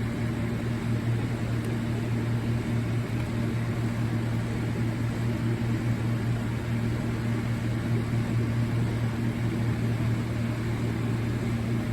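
Steady low mechanical hum with a faint hiss, unchanging throughout; no alarm beeping is heard.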